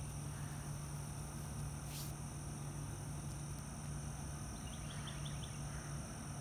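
Quiet outdoor background: a steady low hum under a faint even hiss, with a short quick run of faint high chirps about five seconds in.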